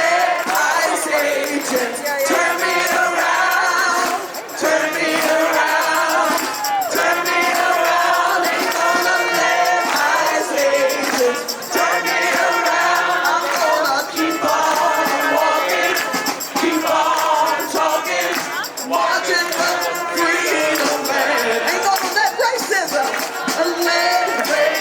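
A crowd of protesters singing a protest song together, with percussion keeping a beat.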